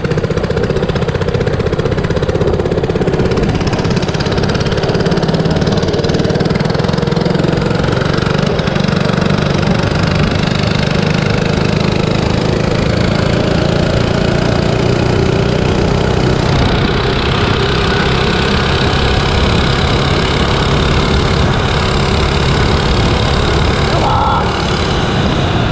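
97cc Baja mini bike's small single-cylinder engine running steadily while riding, its pitch rising and falling slightly as the throttle changes, with wind noise rushing over the microphone.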